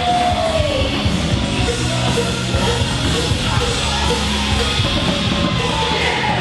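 Loud recorded music with a singing voice, played over a DJ's sound system.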